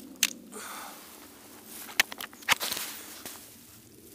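Handling noise as a caught pike is lowered back into the water by hand: one sharp click or knock near the start and two more about half a second apart around the middle, each followed by a short rustle of dry bankside grass.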